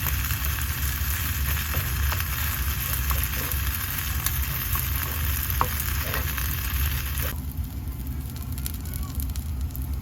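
Food sizzling in a frying pan over a steady low hum, with a few faint clicks. The sizzle turns quieter about seven seconds in.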